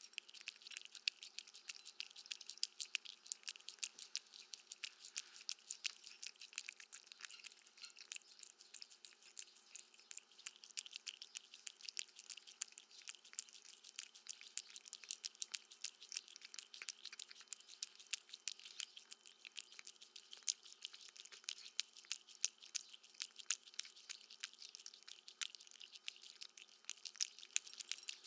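Cat eating: a rapid, irregular stream of small crunching clicks as it chews dry food.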